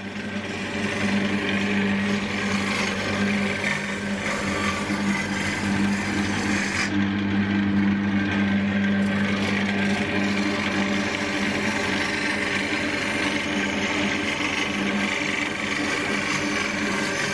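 Wood lathe running with a steady motor hum while a turning gouge shaves a spinning ash bowl blank, a continuous rasping cut.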